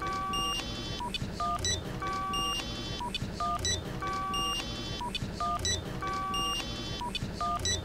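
Many mobile phones' text-message alert tones going off together: short electronic beeps and chimes at several pitches, in a pattern that repeats about every two seconds.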